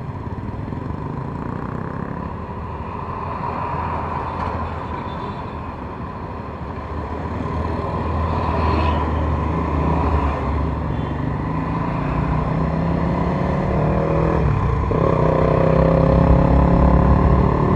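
Motorcycle engine and surrounding traffic at a stop, then the motorcycle pulling away and accelerating. The engine note rises and grows louder over the second half, with a short break for a gear change about fifteen seconds in.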